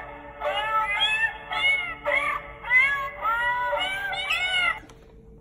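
Musical greeting card's sound chip playing a tune made of cat meows: a quick, regular run of short rising-and-falling meow notes, about three a second, that cuts off suddenly near the end.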